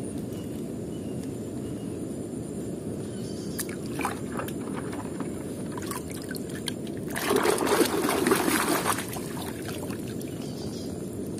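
Running water rushing steadily, with a few small clicks and splashes and a louder spell of splashing and sloshing about two-thirds of the way through as a die-cast toy truck is dipped and swished in muddy water.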